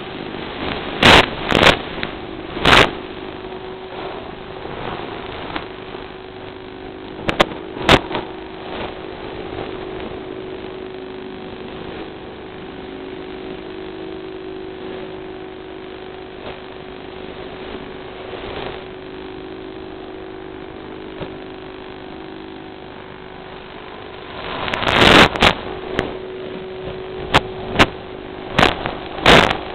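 Small FPV quadcopter's electric motors humming steadily, heard from on board, with loud sharp crackles of radio static about a second in, again near eight seconds, and several times near the end.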